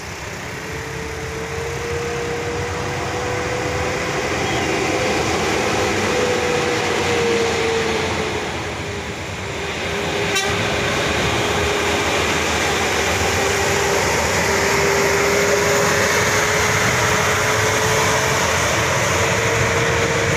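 Mixed road traffic on a hairpin bend: a bus, a heavy truck and motorcycles running, with a steady whine over the engine noise. The level dips briefly about nine seconds in, and there is a single click about ten seconds in.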